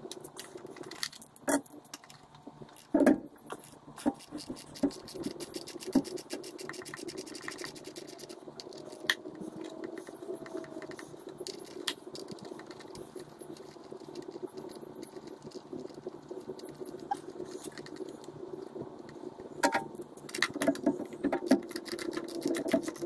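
Ratchet wrench and socket on the 12 mm thermostat housing bolts of an engine: scattered metal clinks and knocks of the tool, then quick ratchet clicking near the end, over a steady low hum.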